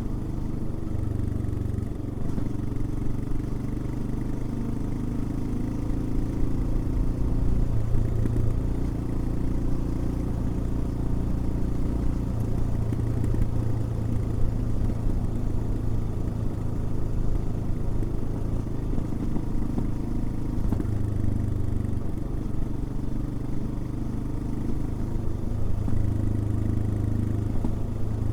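Royal Enfield Himalayan's single-cylinder engine running under way, its note rising and falling in steps as the throttle opens and closes and gears change.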